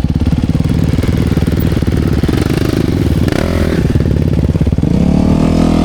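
Dirt bike engine running with a rapid pulsing note, its revs shifting and then rising and falling near the end.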